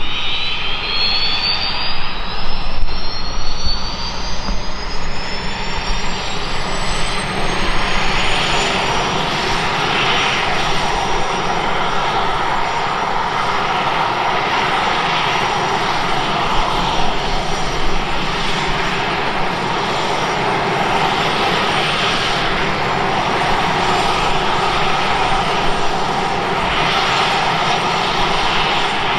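Walter M601 turboprop engine of a Turbine Legend starting up: a high turbine whine rises steadily for about the first nine seconds, then holds at one pitch as the engine settles into a steady idle with its three-bladed propeller turning.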